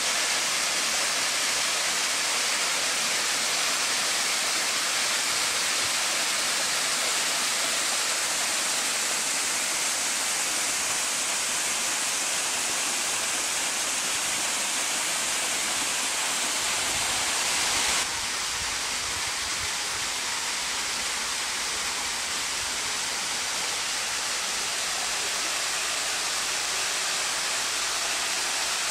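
Water pouring down a stepped rock cascade into a pond: a steady rushing splash. About two-thirds of the way through, the sound abruptly drops a little in level and changes slightly.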